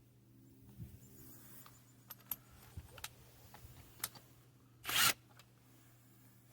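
Handling noises: several light clicks and knocks of hard objects, then a short loud rasp about five seconds in, over a steady low hum.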